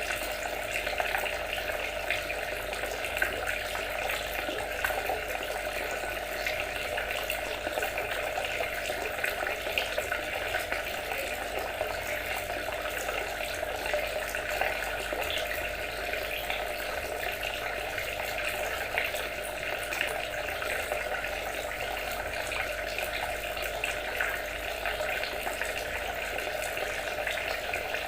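Water trickling and splashing steadily, a continuous babble of small splashes with no change.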